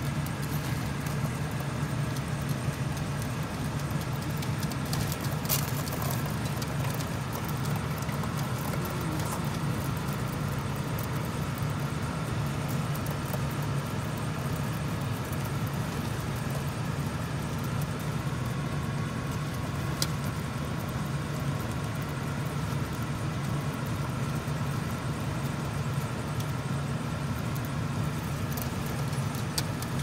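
Steady low mechanical hum, unchanging throughout, with a few faint sharp clicks, the clearest about twenty seconds in.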